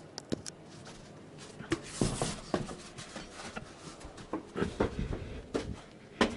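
Scattered knocks, bumps and rustling as a studded winter tyre on its wheel is picked up and carried, with a cluster of sharper knocks in the second half.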